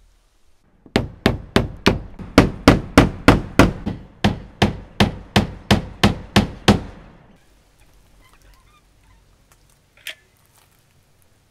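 Hammer blows driving nails into a wooden trim board: about twenty sharp, evenly paced strikes, roughly three a second, stopping about seven seconds in.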